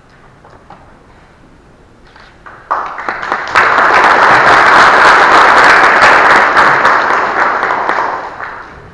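Audience applauding, starting about three seconds in and dying away near the end.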